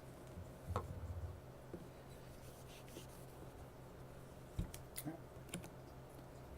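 Faint handling noises on a repair bench: light rubbing, a soft thump near the start and a few sharp clicks and taps later on, over a steady low hum.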